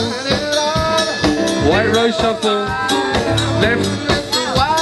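Loud dance music: a sung vocal line over a steady drum beat and bass.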